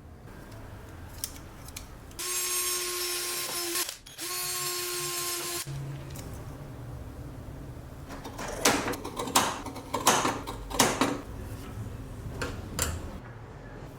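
A small electric power tool runs twice, about a second and a half each time, with a steady whine that sags as it stops. Later come a series of sharp knocks and clicks from handling tools or workpieces.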